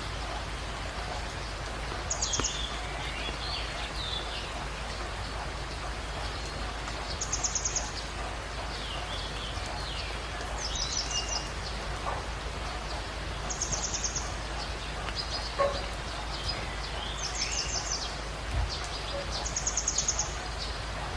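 Birds calling over a steady background hiss. One bird repeats a short, high, rapid trill about every three seconds, and other birds give scattered lower chirps in between.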